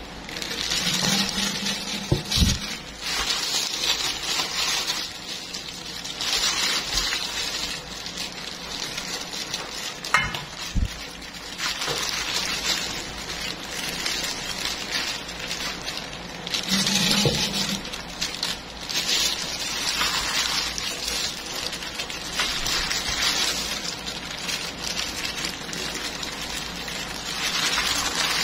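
Wet squishing and plastic rustling as a bag-covered hand kneads salted fish pieces into sticky black tapai in a metal pan. The noise comes in swells every few seconds, with a few sharp knocks.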